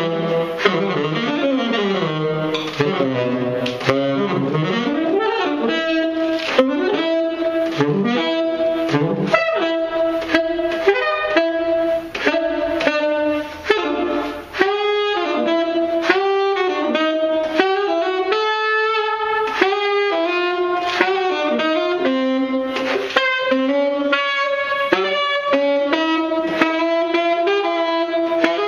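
Solo saxophone improvising: swooping bends at first, then short repeated notes, with frequent sharp clicks throughout.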